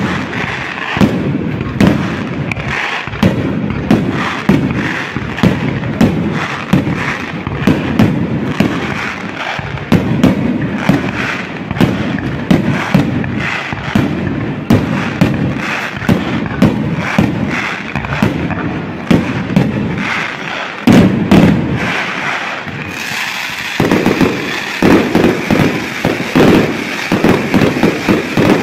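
Fireworks display: aerial shells bursting in a rapid, continuous barrage of sharp bangs. About three-quarters of the way in, a steady crackling hiss joins the bangs.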